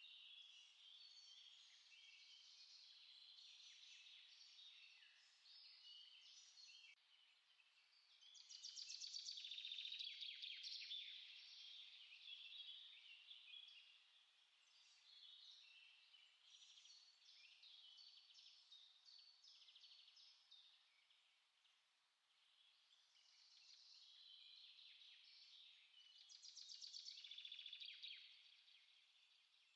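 Faint chorus of small songbirds chirping and singing over each other, with a louder rapid trill about eight seconds in and another near the end.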